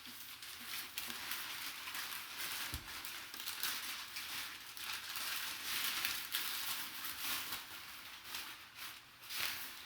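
Packing paper crinkling and rustling unevenly as it is handled and pushed aside to get at an item in a box, with many small crackles.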